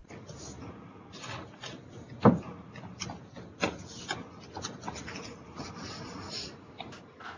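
Rustling and rubbing with scattered light clicks and knocks, and one sharper knock a little over two seconds in.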